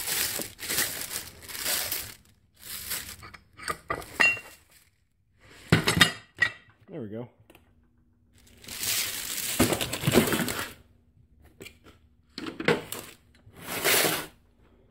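Plastic wrapping crinkling and rustling in bursts as a new bench vise is unwrapped, with metal clinks as the vise and its parts are handled and one sharp clunk about six seconds in.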